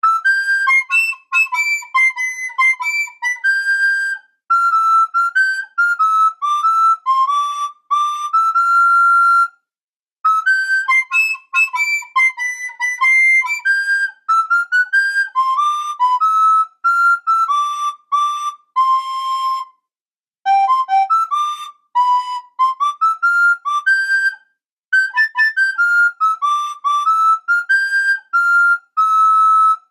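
A person whistling a tune in short phrases, the notes stepping and gliding up and down, with brief pauses every few seconds.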